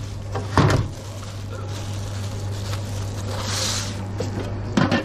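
Food-prep handling at a sandwich counter: a bread roll being worked open by hands in plastic gloves on paper, with a sharp knock about half a second in, a rustle around the middle and another knock near the end. A steady low hum runs underneath.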